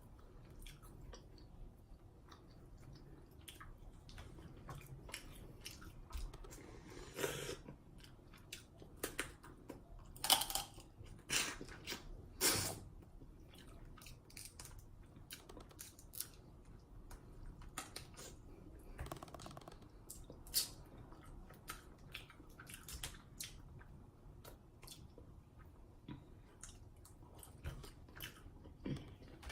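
Close-miked eating of a seafood boil: chewing and wet lip smacking, with many short clicks and cracks, the loudest bunched in the first half.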